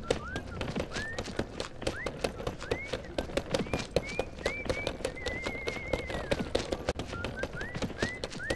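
Horse hooves clip-clopping in a steady trot, with short rising whistled notes about once a second and one longer warbling whistle around the middle.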